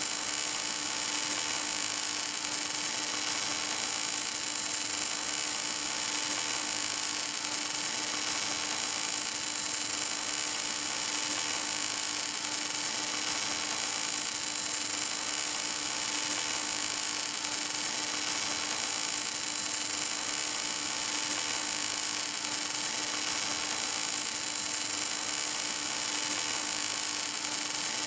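Welding arc of an automatic pipe welding carriage burning steadily: an even hiss with a constant hum, without crackle or pops.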